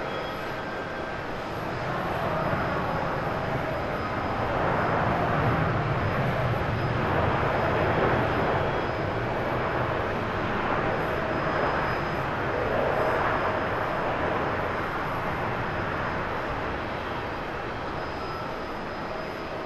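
Airbus A350-941 airliner's Rolls-Royce Trent XWB engines rumbling during its landing roll. The noise swells a couple of seconds in, is loudest in the middle and eases off near the end as the jet slows.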